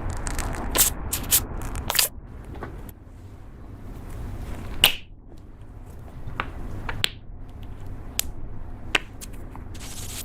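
Slime being squished and poked by hand, giving sharp clicking pops at irregular intervals. The loudest pop comes about halfway through.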